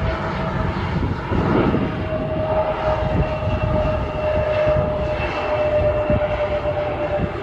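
Airliner's engines running loud as it passes near the airport: a steady whine over a low rumble, the whine drifting slightly lower in pitch.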